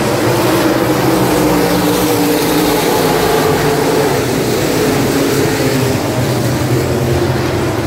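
A pack of super stock dirt-track race cars running under power around the oval, several engines sounding together at a steady pitch.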